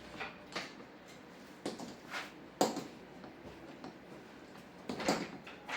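TV bezel being pressed and snapped onto the frame: a series of irregular clicks and knocks, the loudest about halfway through.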